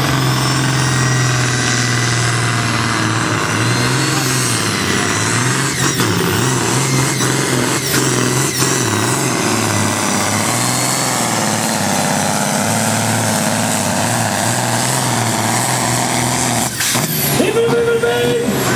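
Diesel engine of a 3500 kg class pulling tractor running flat out under load during a pull, loud and steady with a slightly wavering note.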